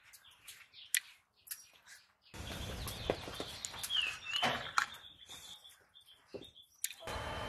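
Fingers mixing rice and fish curry on a steel plate, giving soft scattered clicks and scrapes. Birds chirp in the background, with a short chirp about four seconds in and a few more just after.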